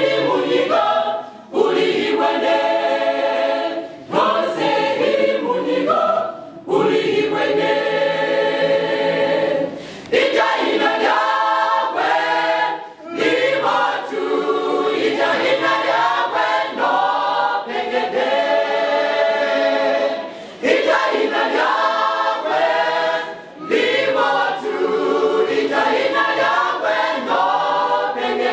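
Mixed choir of men and women singing a hymn in harmony without instruments, in phrases of a few seconds with short breaks between them.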